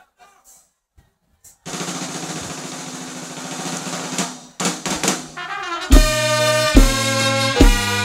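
Live band on stage: a snare drum roll builds for a few seconds, a few sharp drum hits break it, and about six seconds in the full compas band comes in with chords over a heavy bass-drum beat.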